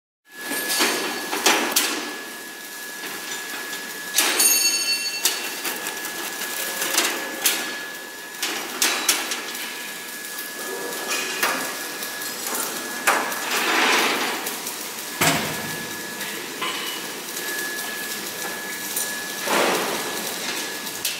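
Workshop assembly noise: irregular metal knocks and clanks from work on a diesel generator set's radiator, over a steady high whine.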